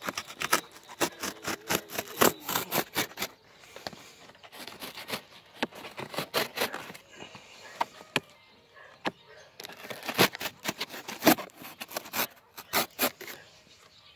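Packing tape, a plastic label pouch and cardboard being torn and slit open with a knife: a rapid run of sharp crackles and scrapes in bursts, with quieter spells about four and eight seconds in.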